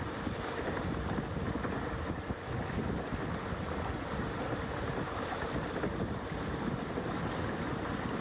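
Wind buffeting the microphone over the steady rush of water along the hull of a sailing yacht under way.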